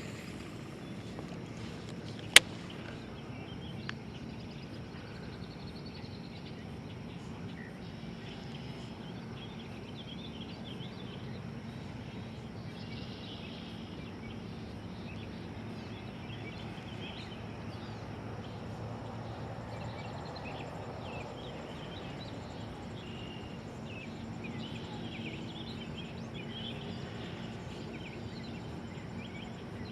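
Outdoor lakeside ambience: steady background noise with faint bird chirps scattered through it and a low steady hum, broken by one sharp click a couple of seconds in.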